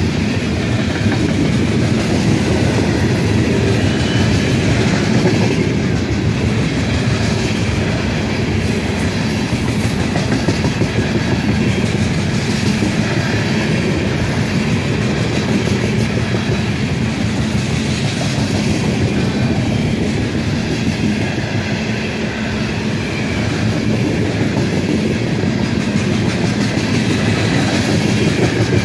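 Freight train of steel gondola cars rolling steadily past, the wheels rumbling and clacking on the rails.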